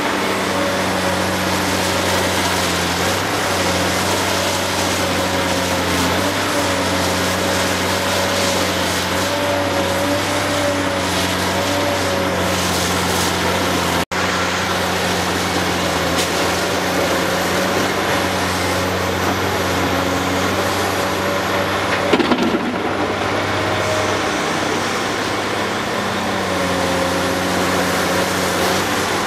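Heavy diesel engines of a Caterpillar 385C LME excavator and a Cat dump truck running steadily, with a wavering whine over the low engine note as the excavator swings and loads. A brief clatter comes about three-quarters of the way through, and the sound drops out for an instant about halfway at an edit.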